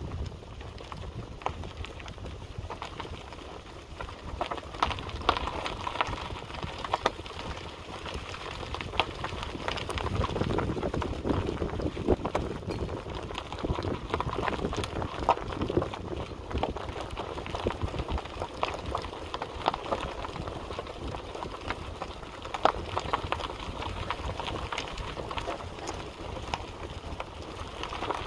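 Wind buffeting the microphone in a low, uneven rumble, with rustling and scattered short clicks throughout.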